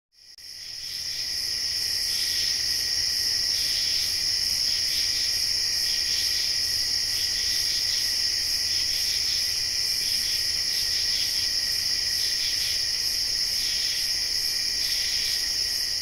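A dense insect chorus chirping steadily in a high, shrill continuous band. It fades in over the first couple of seconds and fades out near the end.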